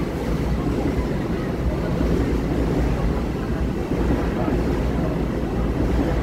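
Long Island Rail Road M7 electric multiple unit standing at the platform, its onboard equipment giving a steady low hum.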